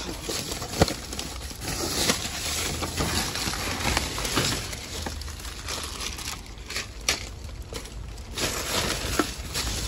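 Plastic bags, wrapping paper and packaging rustling and crinkling as a gloved hand rummages through trash in a dumpster, with a few sharp clicks and knocks, the loudest about a second in.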